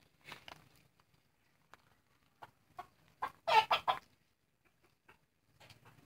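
Roosters clucking: a few scattered short clucks, with a quick run of louder clucks about three and a half seconds in.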